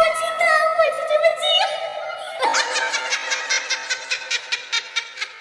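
Laughter: a high, wavering giggle, then from about halfway a quick, even run of short laughing pulses, about six a second, fading away.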